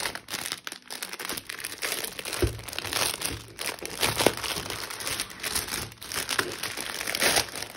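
Thin clear plastic bag crinkling and rustling in the hands as it is pulled open, with dense irregular crackles throughout.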